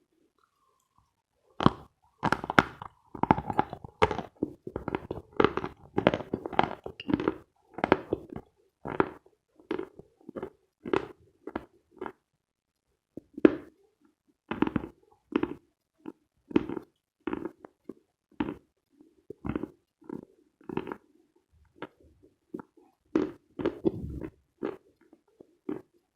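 Khrapovsky chalk being bitten and chewed close to the microphone: a run of sharp crunches, dense for the first several seconds, then spaced to about one or two a second, with a short pause about halfway.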